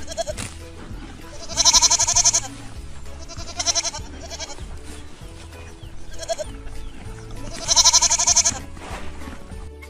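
Goat bleating: two long, loud, quavering bleats about six seconds apart, with a few shorter, fainter bleats between them, over background music.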